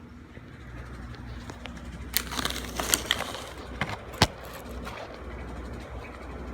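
Recorded gunshots played back through a small speaker: a quick cluster of sharp cracks in the middle, the last the loudest, over a low steady hum.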